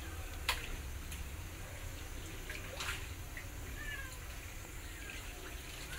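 Cat chewing meat, with two sharp crunches, the loudest about half a second in and another near the middle, and a few faint short high calls.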